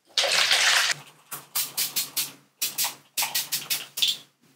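A hand-pump bottle of hair curl spray hisses out one mist of just under a second. It is followed by a run of short, quick sniffs as the scent is smelled.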